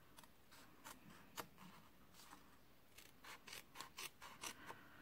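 Scissors cutting a thin strip off the edge of folded paper: faint short snips, a few scattered at first, then a quicker run of about four a second over the last two seconds.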